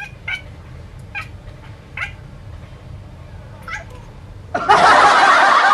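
A cat giving four short, quiet meows, then a loud, harsh caterwaul starting about four and a half seconds in.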